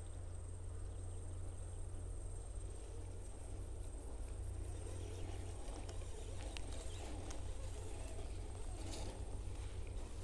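Outdoor ambience: a steady high insect drone over a low wind rumble on the microphone, with a few faint clicks in the second half.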